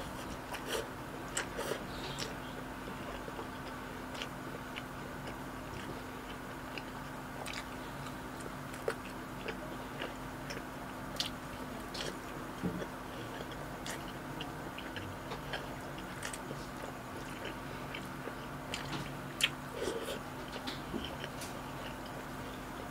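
A person chewing and lip-smacking while eating rice and embutido by hand, with scattered short wet mouth clicks. A faint steady hum runs underneath.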